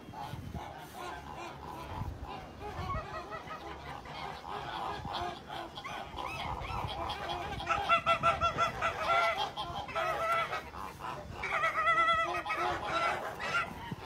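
A flock of white domestic geese honking: a run of short, quickly repeated honks that get louder in bouts about eight seconds in and again about twelve seconds in.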